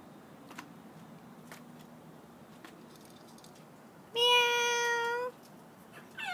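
A cat meowing: one long, even-pitched meow about four seconds in, and a short falling mew right at the end.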